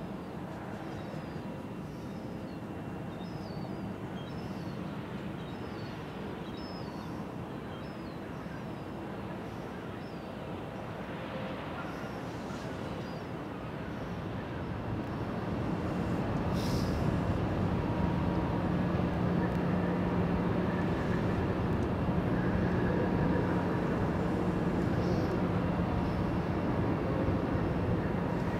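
Low engine drone that grows louder about halfway through and then holds steady with a hum.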